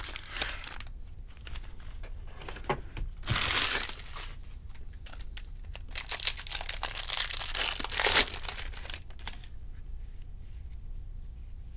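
Foil wrapper of a Topps baseball-card jumbo pack crinkling and tearing as it is opened by hand, in several bursts: a loud one about three and a half seconds in and a longer stretch of crinkling from about six to nine seconds.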